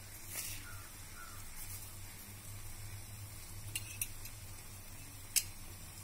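Sliced bananas sizzling softly in hot ghee in a frying pan, over a low steady hum, while sugar is spooned in. There are a few sharp clicks of a spoon on the pan, the loudest about five seconds in.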